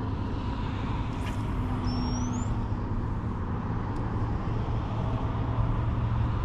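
Steady low outdoor rumble, of the kind distant road traffic makes, with a short rising chirp about two seconds in.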